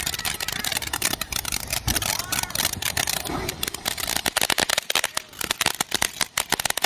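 Firework crackling: a rapid, irregular stream of small sharp pops.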